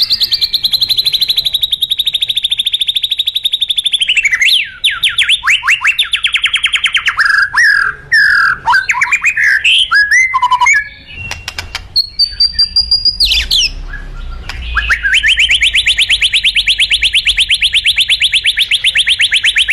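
White-rumped shama (murai batu) singing loudly: long, very rapid trills of repeated notes, with a stretch of varied whistled notes and quick up-and-down slides in the middle, and a short pause partway through.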